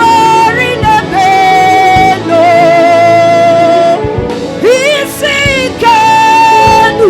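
Gospel worship music: a sung melody in long held notes with vibrato and slides, over instrumental backing.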